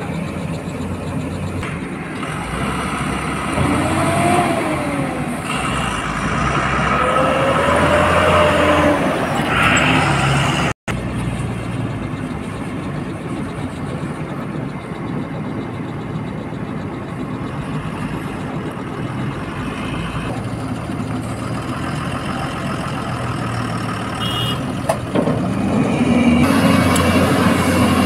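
Diesel engine of a Hyundai 215L crawler excavator running under load, with a tone that rises and falls twice in the first ten seconds. After a brief cut-out, a loaded Tata tipper truck's diesel engine as it drives away, then the excavator's engine again near the end as it digs.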